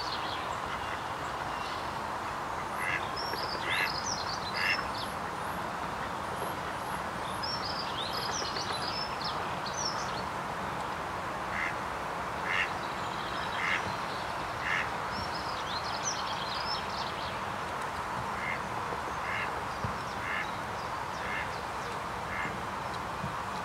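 Ducks quacking in short runs of three to five calls about a second apart, over bursts of high chirping from small songbirds and a steady background hiss.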